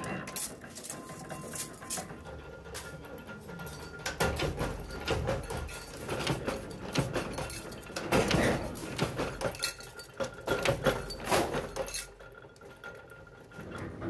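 Stainless steel spoon blanks clinking and clattering against each other and the steel of a mechanical press as they are handled and fed under the die: irregular sharp metal clinks and knocks over a low machine rumble.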